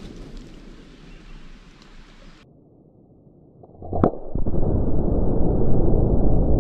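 A single sharp rifle crack about four seconds in, from a .223 rifle, followed at once by a loud, steady, low rushing noise that does not die away. Before it, the low rumble of an earlier blast fades out and cuts off suddenly.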